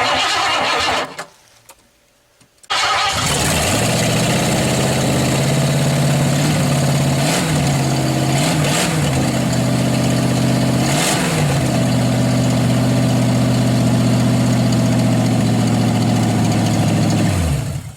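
1987 Ford Bronco's freshly overhauled fuel-injected engine starting up and running steadily, with three brief blips of the throttle, then shutting off, its pitch dropping as it stops near the end.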